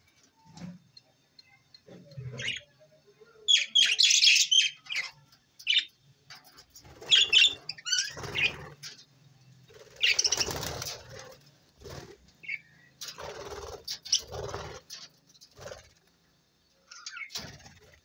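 Budgerigars chirping in short bursts, with wings flapping as birds flutter and fly close by.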